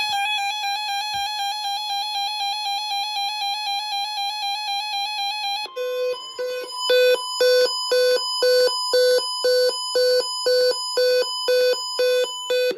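Electronic weather-alert alarm tones sounding for a NOAA Weather Radio weekly test of the warning alarm device: a steady, buzzy tone for about six seconds, then rapid beeping that alternates between a low and a high tone.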